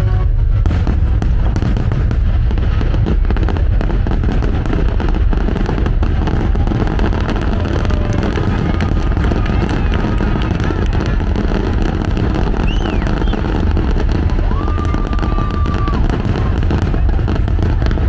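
Aerial fireworks bursting in a dense, continuous barrage: heavy booms with crackling over them and a few whistling tones, with music playing underneath.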